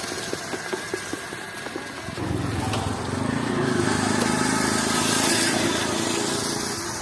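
A run of sharp light clicks and taps for about two seconds. Then a small motor-vehicle engine comes up louder and runs steadily through the rest, with street noise around it.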